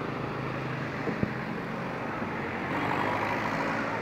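Steady engine rumble with a low hum, a sharp click just after a second in, and a swell of louder noise a little before the end.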